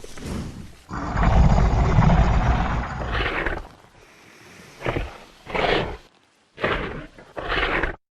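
Designed Tyrannosaurus rex vocalizations: a long, deep roar of about two and a half seconds, followed by four short calls with silent gaps between them.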